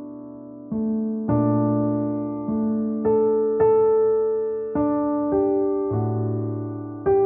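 Slow, calm piano music, with notes and chords struck roughly once a second and each one ringing out and fading.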